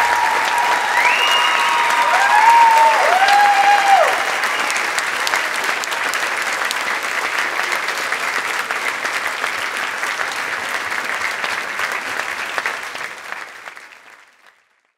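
Audience applauding, with a few high calls rising and falling over the clapping in the first few seconds. The applause fades out near the end.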